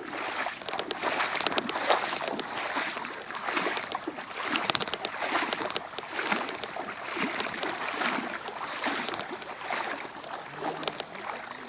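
Rhythmic splashing of shallow floodwater, about one and a half splashes a second, as it is pushed through while moving across the flooded field.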